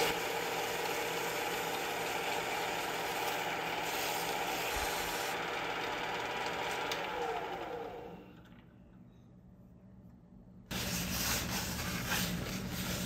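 Small metal lathe running steadily with the differential's pinion flange chucked, while 600-grit sandpaper with WD-40 is held against the flange's seal surface to polish it. The lathe is switched off and winds down about eight seconds in. After a brief near-silent gap, a steady hum starts again abruptly near the end.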